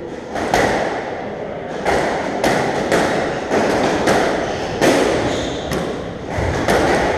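Squash rally: the ball cracks off the rackets and the court walls in a quick run of sharp hits, about one or two a second, each echoing in the enclosed court.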